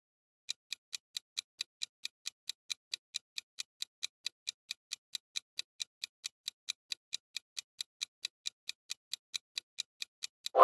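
Ticking-clock countdown sound effect: evenly spaced, quick ticks, about four to five a second, starting about half a second in.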